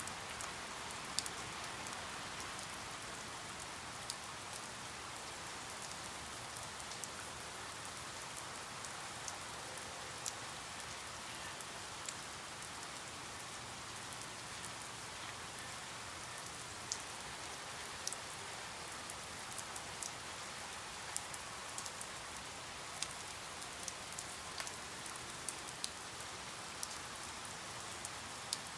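Steady rain falling, an even hiss with the sharp ticks of individual drops hitting a surface scattered through it, more frequent in the second half.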